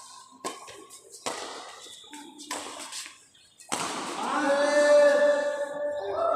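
Badminton rackets hitting a shuttlecock, a few sharp taps spaced about a second apart. From about four seconds a louder, held, voice-like pitched sound takes over and changes pitch near the end.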